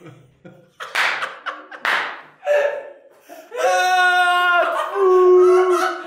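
A man's voice: a couple of short breathy bursts, then two long, loud held notes of a wordless sung or shouted call, the second purer in tone.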